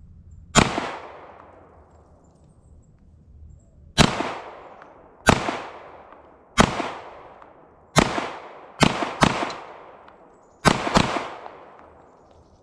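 Nine pistol shots from a CZ Shadow 2 Urban Grey 9mm, fired one at a time at an uneven pace, with two quick pairs in the second half. Each shot is a sharp crack followed by an echo that dies away over about a second.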